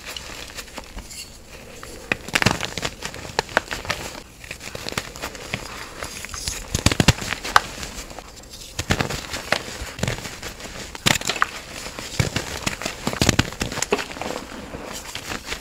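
Hands crushing and crumbling blocks of reformed gym chalk and squeezing the loose powder. It makes a dense, irregular crackling crunch, with several louder crunches scattered through.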